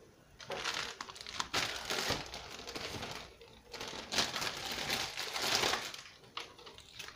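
Plastic bag and clay-packet wrapping crinkling and rustling as hands pull out and open a packet of air-dry modelling clay, in irregular surges for about five seconds, then a couple of small clicks.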